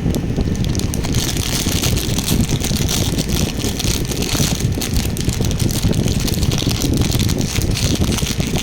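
Plastic toy packaging crinkling and rustling as it is handled and opened, a dense run of crackles over a steady low rumble.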